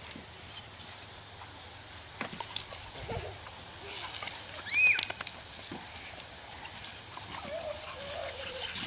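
Lawn sprinkler spraying, with a black dog splashing and biting at the jets. A short high-pitched squeal about five seconds in, and a wavering cry near the end.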